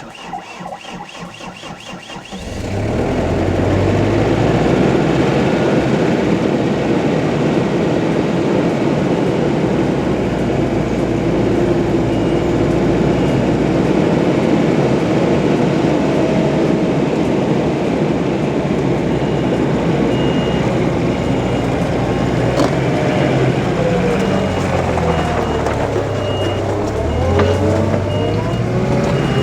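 Skid steer engine running hard under load while grading dirt with a six-way blade. It comes up to full power about two and a half seconds in and shifts in pitch near the end. A backup alarm beeps at a steady pace through the second half.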